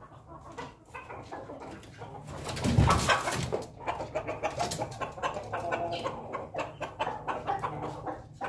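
Ayam ketawa (laughing chicken) roosters crowing and clucking, loudest about three seconds in, followed by a busy run of short repeated calls.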